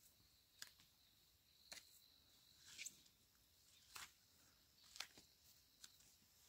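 Faint, sharp clicks or taps, about one a second, six in all, over a faint steady high hiss.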